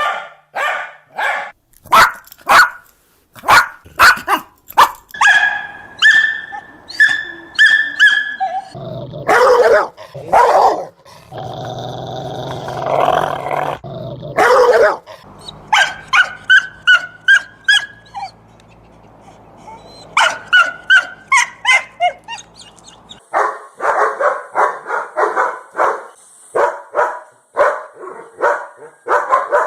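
Dog barking in several bouts of separate, loud barks. About nine to fifteen seconds in comes a longer, continuous growl, and near the end a fast run of barks, about three a second.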